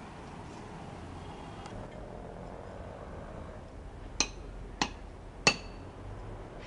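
Three sharp metallic clinks a little over half a second apart, each with a brief ringing tone, the last the loudest: metal tapped against a metal pipe fitting.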